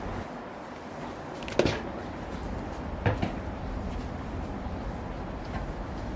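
Two sharp knocks a second and a half apart, and a third near the end, over a steady low hum.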